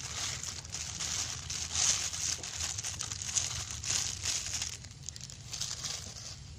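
Thin plastic bag crinkling as urea granules are shaken out of it onto a wet duckweed slurry, in uneven spurts that die down near the end.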